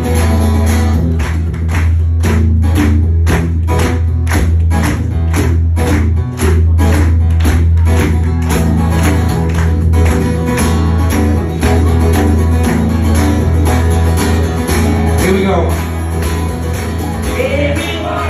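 Live acoustic guitar song played through a venue PA, strummed with a sharp, even beat about twice a second over a heavy bass. A voice starts singing near the end.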